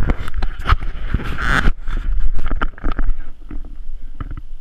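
Low rumbling noise with scattered clicks and rustles, densest about a second and a half in: wind and handling noise on the camera's microphone.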